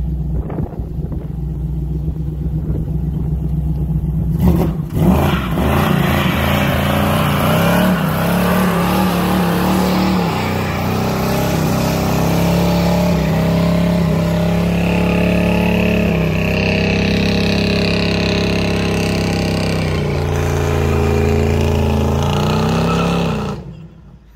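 Small-block Chevy V8 in a 1974 Datsun 620 pickup idling, then revved hard about four and a half seconds in and held at high revs for a burnout, the rear tyres spinning and smoking. The revs rise and fall through the burnout and drop away near the end.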